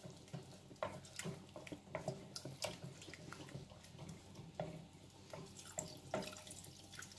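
Wooden spoon stirring thick, lumpy béchamel in a stainless steel pot: faint, irregular wet scrapes and clicks against the pot, a few a second. Near the end, milk is poured in from a carton.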